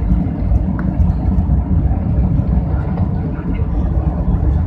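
Airbus A320 cabin noise from a window seat over the wing as the jet rolls along the runway: a loud, steady low rumble of the engines and the wheels.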